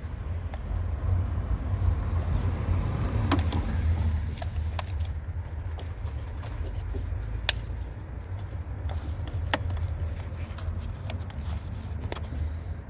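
Scattered sharp clicks and light knocks of cables and lock parts being handled inside a car door, over a steady low rumble.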